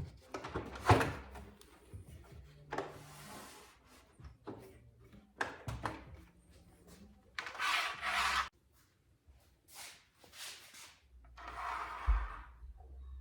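Wooden jig parts being handled: scattered knocks and clunks, the loudest about a second in, and two longer scrapes of wood rubbing and sliding on wood in the second half.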